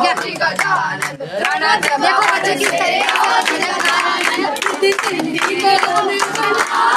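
A crowd of boys shouting and chanting together, with many hands clapping.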